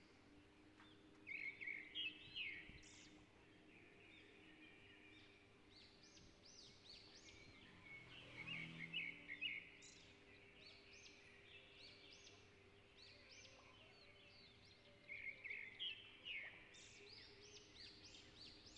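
Faint bird chirping: many short high notes throughout, with three louder bouts of quick chirps about a second and a half in, around eight to nine seconds in, and near fifteen seconds in, over a faint steady low hum.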